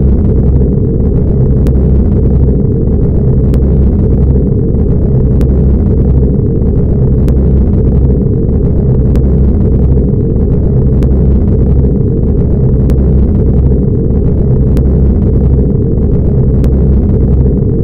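Science-fiction spaceship engine sound effect: a loud, steady low rumbling drone of a ship cruising, swelling gently about every two seconds with a faint tick at the same spacing.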